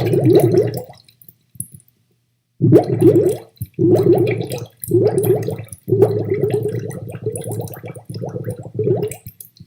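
Bubbling, gurgling water sound effect standing in for an aquarium fish. It comes in several bursts of rapid bubbling, with a pause of about a second and a half early on.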